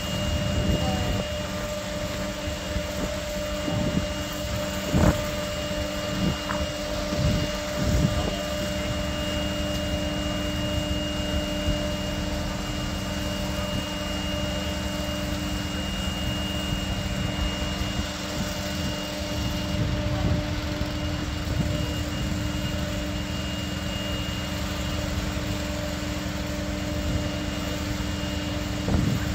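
Steady machine drone with several fixed humming tones, like running engines or powered equipment, with a few short knocks between about four and eight seconds in.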